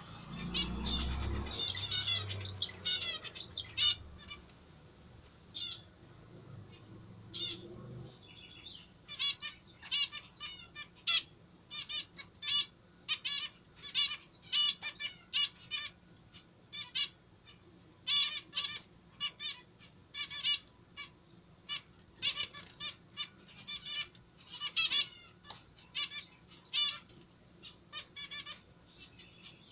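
Caged zebra finches calling: a fast, dense run of chirps in the first few seconds over a low rumble, then a steady string of short calls, several a second, to the end.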